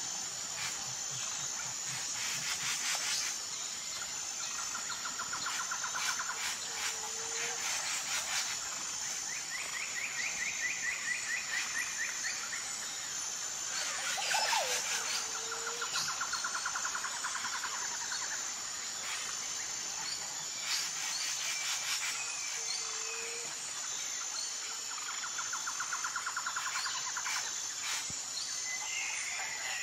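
Nature ambience: a steady high insect drone, with trilling calls of a few seconds each coming and going, and a short low call repeating about every eight seconds.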